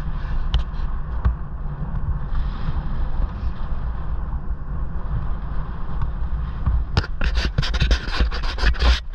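Wind buffeting on the microphone and tyre rumble from an e-bike riding along a tarmac lane. From about seven seconds in, loud irregular scraping and crackling close to the microphone.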